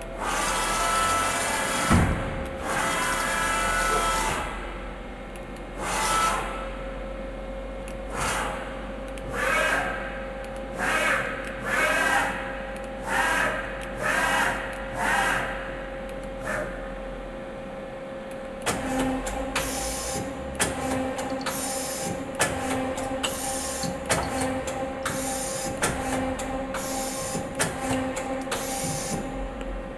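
Doosan Puma 400LB CNC lathe running under power, with a steady hum throughout. Short whirring sounds come about once a second for a stretch, then a busier run of rapid clicks and ticks over a pulsing lower tone.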